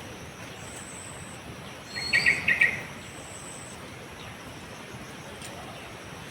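A bird gives a quick run of about five loud chirps about two seconds in, opening with a short rising whistle. Behind it insects buzz in on-and-off spells.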